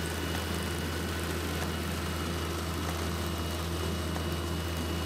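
Sugar beet loading machine running: a steady low drone of its engine and conveyor, with a faint steady high whine.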